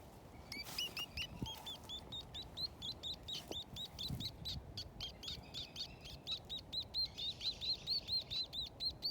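Nuthatch singing: a long, rapid series of short repeated notes, about five a second, starting about half a second in.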